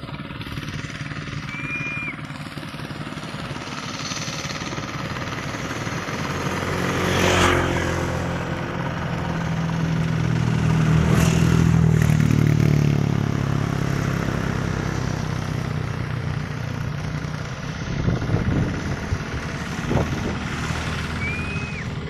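A motor vehicle's engine passing by off-camera, growing louder to a peak around the middle and then fading away.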